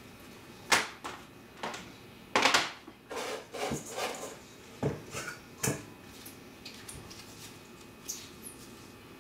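Plastic food-storage containers being set down and handled on a countertop and kitchen scale: several sharp knocks and a brief clatter over the first six seconds, then only faint handling noise.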